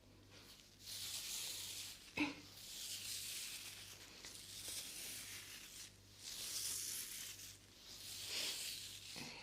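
Soft scratchy rustling close to the microphone, coming in swells a second or two long, with a sharp click about two seconds in.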